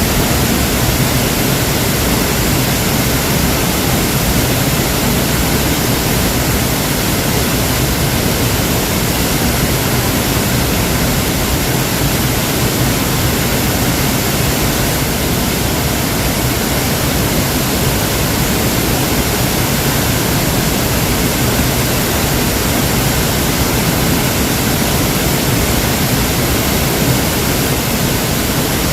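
Waterfall: water falling in a steady, even rush that does not change.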